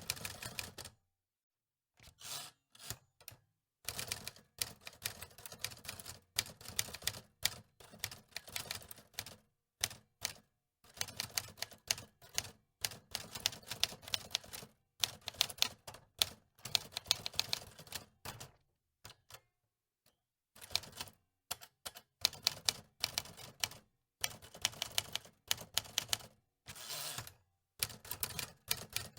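Antique typewriter being typed on: keys clacking in quick runs, broken by short pauses.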